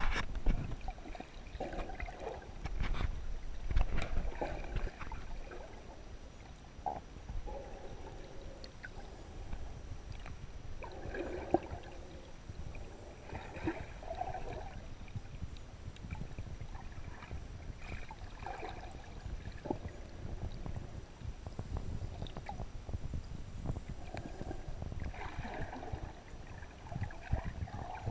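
Muffled underwater sound from a camera in a waterproof housing submerged in shallow sea water: low rumbling water movement, scattered clicks, and short rushes of noise every few seconds.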